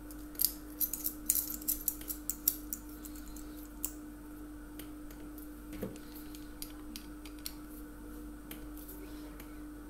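Small metal clicks and clinks of a screw, washer and nut being tightened onto a finned heat sink and L-bracket. They are quick and frequent for the first few seconds, then sparse, over a faint steady hum.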